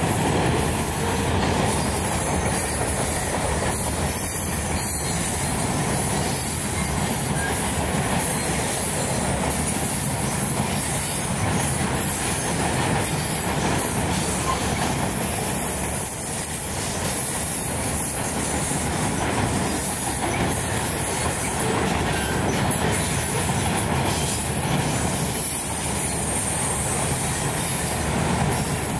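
Freight train's cars rolling steadily past: the continuous rumble and rattle of covered hoppers and loaded flatcars on the rails, holding level throughout.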